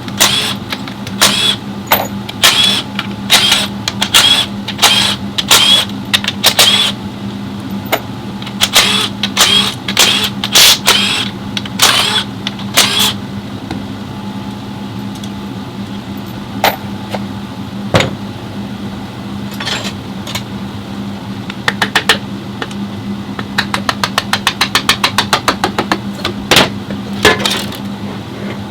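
Metal tools knocking and clanking on a Ford Explorer 6F35 automatic transmission as it is taken apart, with sharp ringing clanks about every half second at first. Near the end comes a fast run of ratchet-like clicks, about ten a second, over a steady hum.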